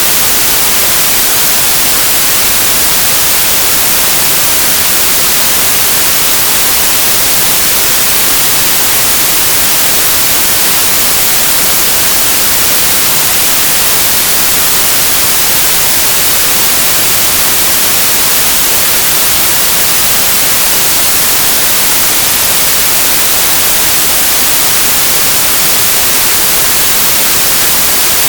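Synthesized white noise: a steady, even hiss with a flat spectrum, bright and high in tone, unchanging throughout.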